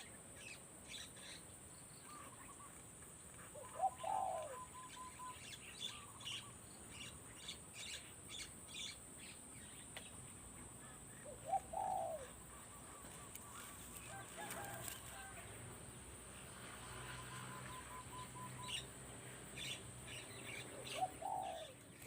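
Spotted dove cooing: three similar low cooing phrases about eight seconds apart, with small birds chirping in the background.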